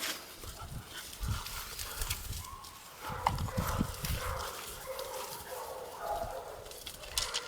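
Red nose pit bull puppies playing: irregular scuffling and thumping of paws, with some short dog vocal sounds mixed in.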